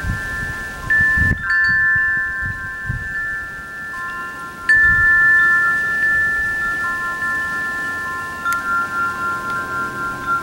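Tubular wind chime stirred by the breeze: the striker knocks the tubes, setting off several overlapping bell-like notes that ring on for seconds, with fresh strikes about a second and a half in and again near five seconds.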